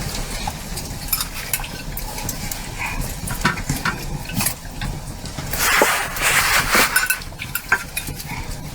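Cooking pots and utensils clinking and scraping, with scattered sharp clicks and a louder hissing stretch about six seconds in.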